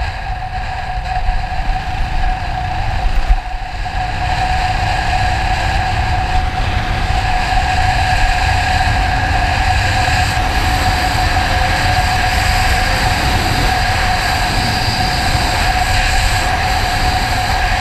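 A vehicle travelling at a steady speed: a continuous low rumble with a steady whine over it.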